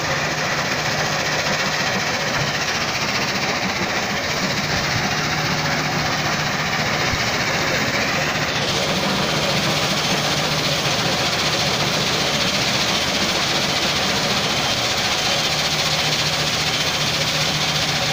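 Vertical shaft impact stone crushing plant running: a steady, loud din of crusher and conveyor machinery with a constant low hum underneath.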